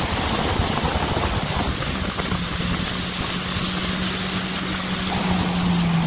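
Small watercraft engine running steadily at low speed, its low hum clear from about two seconds in, over a steady wash of water and wind noise.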